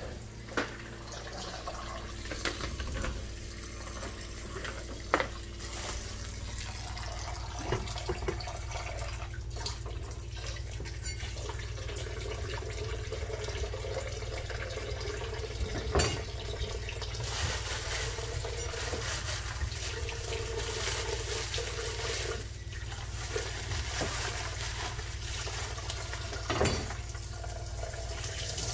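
Kitchen tap running into a bowl of leafy greens in a stainless steel sink, the water splashing over the vegetables as they are rinsed by hand. A few light knocks stand out over the steady flow.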